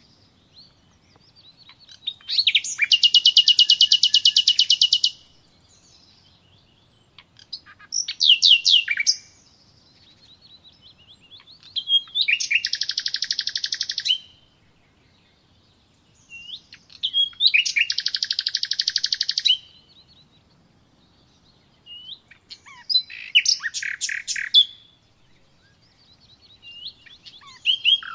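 A small bird singing five fast, high trilled phrases, each about two seconds long, with a few seconds' pause between them.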